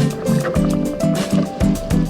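Background music with a steady, fast beat over a pulsing bass line.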